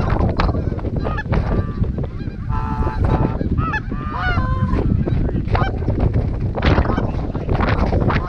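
Canada geese honking: a rapid series of short, overlapping honks over a low wind rumble on the microphone.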